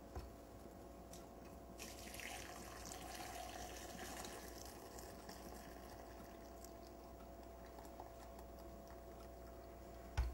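Red wine reduction being poured through a strainer to catch bits of garlic and fat: a faint liquid trickle that swells from about two seconds in and then eases off. A short knock near the end.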